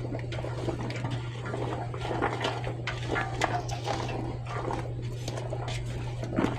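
Cut potatoes and vegetables being tossed by hand in olive oil to coat them, a run of irregular small knocks and shuffling of the pieces.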